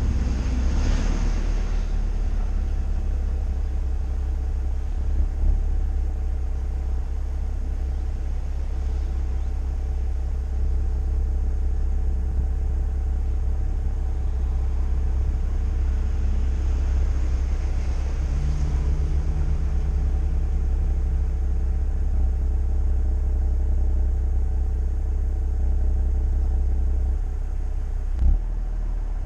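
BMW 325i's 2.5-litre straight-six running steadily through a Performance rear silencer, under a heavy low rumble. A short thump comes about five seconds in and another near the end.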